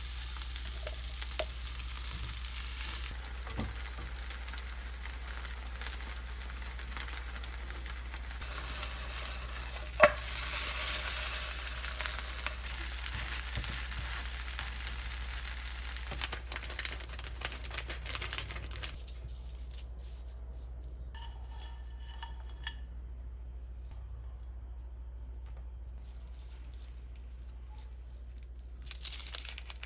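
Food frying in a pan, a steady sizzle with a sharp click about ten seconds in; the sizzle drops away about two-thirds of the way through, leaving a steady low hum.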